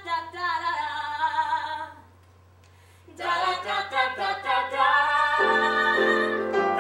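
Singing in a musical-theatre style, with a female voice to the fore. The singing breaks off about two seconds in, then resumes about a second later, and a fuller sustained chord joins underneath about five seconds in.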